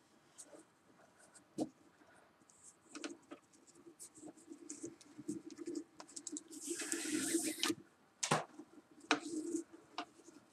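Paracord rubbing and scraping as hands tie and pull tight cobra knots on a dog collar, with scattered small clicks and one longer swishing scrape about seven seconds in.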